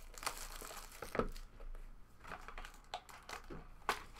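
Clear plastic shrink-wrap crinkling and tearing as it is pulled off a hobby box of trading cards, with a few sharp clicks of the box being handled.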